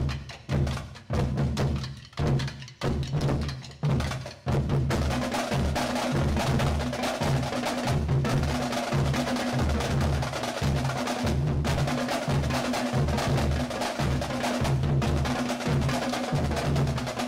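Marching drumline of snare drums, tenor drums and bass drums playing a cadence. For the first few seconds it is separate accented hits with short gaps between them. From about four and a half seconds in it becomes a continuous dense groove over a steady low bass-drum beat.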